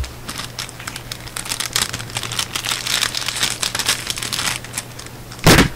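Plastic packaging crinkling and crackling in the hands as a parcel's contents are unwrapped, with a short loud sound near the end.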